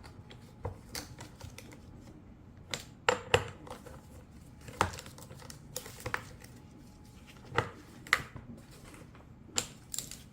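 Irregular sharp metallic clicks and taps of a hand tool tightening the bar-mounting nuts on a cordless chainsaw. There are about a dozen ticks, some in quick pairs or threes.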